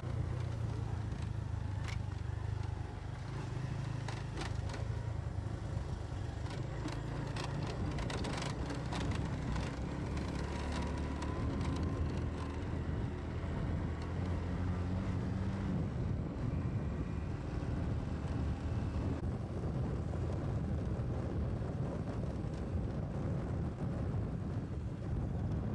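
Motorcycle engine running steadily under way, its pitch drifting a little. Scattered short knocks and rattles sound during the first ten seconds or so.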